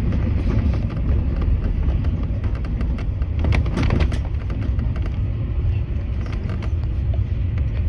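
Steady low rumble of a vehicle moving across the airport apron, heard from inside, with scattered faint clicks and rattles, a small cluster of them about halfway through.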